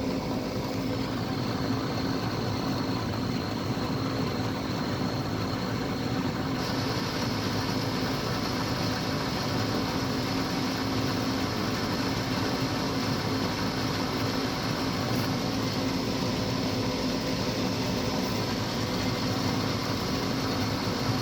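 Gas furnace's draft inducer fan motor running steadily during the start-up sequence before ignition: a constant hum with a steady whirring hiss, which shifts slightly higher about six seconds in.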